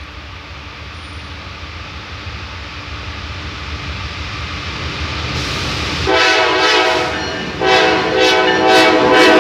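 Norfolk Southern diesel freight locomotive approaching, its rumble growing steadily louder. It then sounds its multi-chime air horn: a long blast about six seconds in, a brief break, and a second blast starting shortly after.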